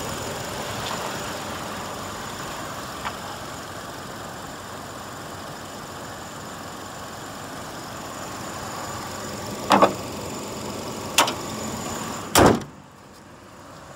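2007 Chevrolet Colorado pickup engine idling steadily under an open hood. About ten seconds in come a few sharp metal clunks, then a loud slam of the hood shutting, after which the engine sound is much quieter and muffled.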